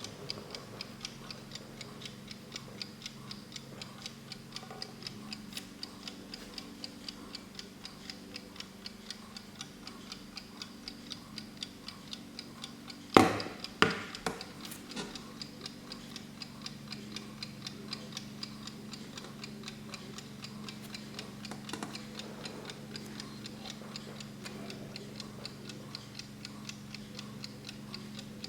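Kienzle alarm clock ticking at a quick, even beat, several ticks a second. About halfway through come two louder knocks close together.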